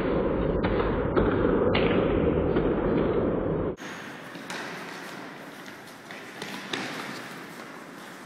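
Loud, muffled rumbling noise that cuts off suddenly about four seconds in. After it come faint thuds of a futsal ball being kicked and players moving on an indoor court, with a few sharp knocks in the echoing hall.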